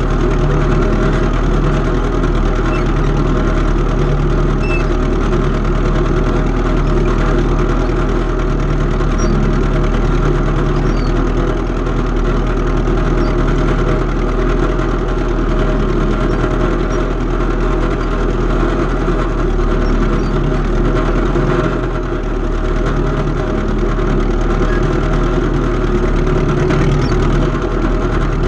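Antique farm tractor engine running steadily with a low, even beat, easing briefly about three-quarters of the way through.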